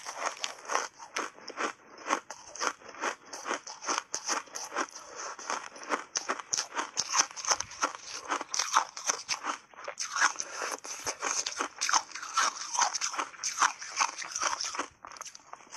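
Ice block coated in matcha powder being bitten and chewed, crunching in quick, irregular strokes, about three a second. The block is frozen mixed-berry ice.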